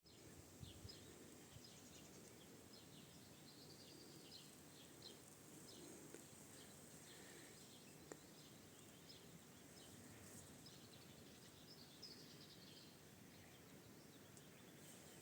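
Faint chirping and twittering of small songbirds, many short calls throughout, over a steady low background hiss.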